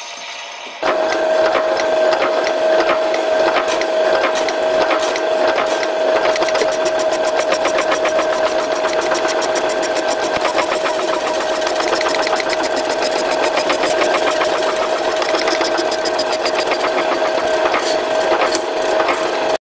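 Power hacksaw cutting through a threaded steel bolt under flood coolant: a steady hum with a fast, regular back-and-forth rhythm from the blade strokes. It starts just under a second in and stops abruptly at the end.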